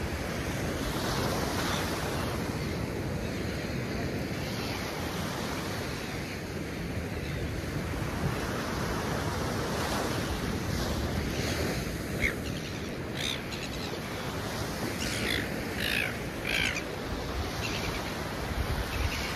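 Surf washing on an open beach, with wind, steady throughout. About five short bird calls come in over it in the second half, spaced apart at first and then three close together.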